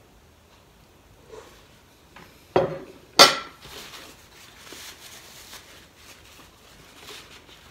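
A small ceramic plate set down with two sharp clinks about half a second apart, the second the louder, followed by soft paper rustling as hands are wiped with a tissue.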